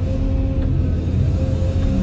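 Background music with long held low notes that change pitch every half second or so, over a steady low rumble.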